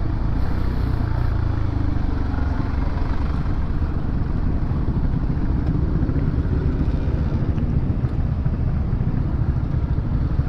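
A Honda CB150R's single-cylinder engine running steadily while riding in city traffic, with a constant low rumble of road noise.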